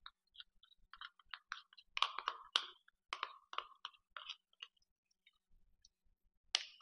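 Butter knife scraping creamy peanut butter out of a plastic measuring cup into a glass bowl: a run of soft, sticky scrapes and clicks, busiest in the middle, with one more near the end.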